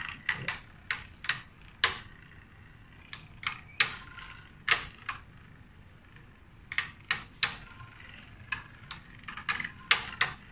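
Two Beyblade Burst tops spinning against each other in a plastic stadium, their edges clashing in sharp, irregular clicks, about one to three a second, with a short lull about six seconds in.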